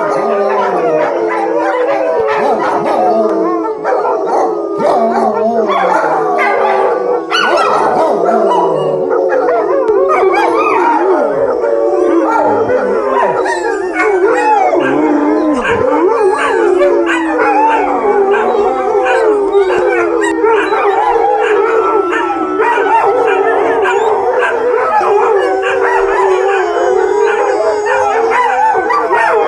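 Many dogs howling together in overlapping, wavering, gliding howls, with a few short barks and yips among them.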